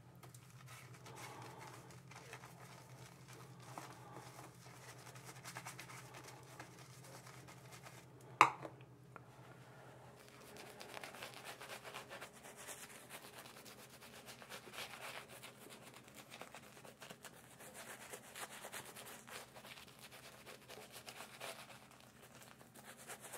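Omega S-Brush synthetic-fibre shaving brush working lather onto a face: soft, repeated scratchy brushing strokes. A single sharp click about eight seconds in is the loudest sound.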